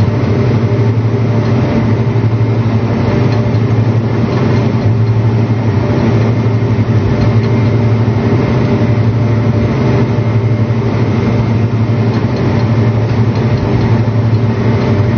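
John Deere 8295R tractor's diesel engine running steadily under load, pulling a peanut digger-inverter; an even, unchanging engine drone.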